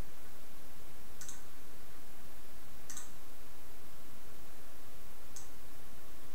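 Three single computer mouse clicks, about two seconds apart, over a steady background hiss.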